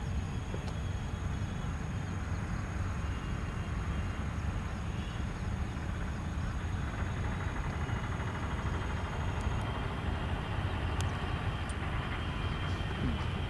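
Steady low outdoor background rumble, with no distinct event standing out.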